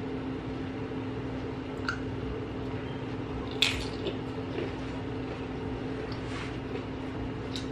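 Crunches and wet chewing as a Doritos tortilla chip loaded with beef and cheese is bitten and chewed: a few short crunches, the sharpest about halfway through. A steady low hum runs underneath.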